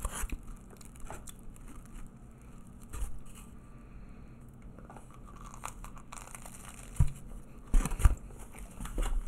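A person eating close to the microphone: scattered short clicks and rustles of chewing and food handling, the loudest about seven and eight seconds in.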